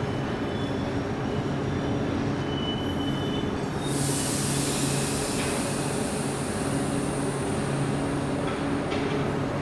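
Passenger coaches rolling slowly along the platform track, with a steady low hum and faint thin wheel squeals. About four seconds in, a high hiss joins and slowly fades.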